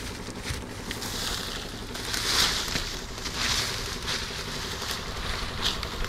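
Wind buffeting the microphone, with rustling of dry grass and ferns in several louder swells, over a low steady hum.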